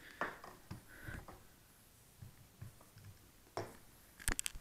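Faint knocks and rustles of model-plane landing-gear parts being handled and set down on a hard floor, ending in a quick run of sharp clicks near the end.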